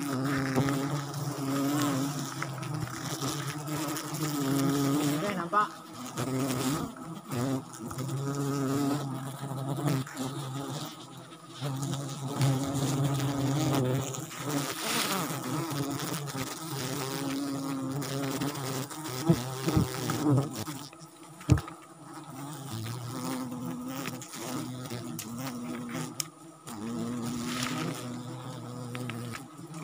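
Swarm of wild forest honey bees buzzing around their nest tree during a honey harvest: a dense droning hum that wavers in pitch, with a couple of sharp knocks about two-thirds of the way through.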